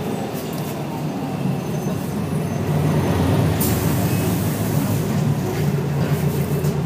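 Rear-mounted Scania DSC1171 11-litre six-cylinder turbo diesel of a Scania L113CRL bus running under way with a steady drone, growing louder about three seconds in. A brief hiss comes a little past halfway.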